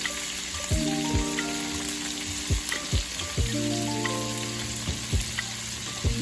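Smoked sausage and peppers frying in bacon grease in a pan, with a steady sizzle.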